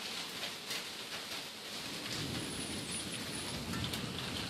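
Heavy rain pouring down in a thunderstorm, a steady hiss with scattered sharp ticks of drops striking, and a low rumble building from about two seconds in.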